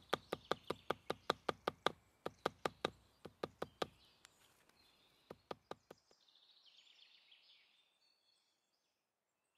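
The back of an iron axe tapping quickly on the stitched seam of a folded leather belt laid on a stone, about four or five knocks a second, flattening the seam and closing up the stitch holes. The tapping stops about four seconds in, with a few last knocks near six seconds.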